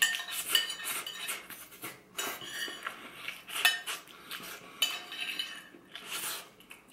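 Metal spoon scraping and clinking repeatedly against a ceramic dinner plate, scooping up the last of the rice.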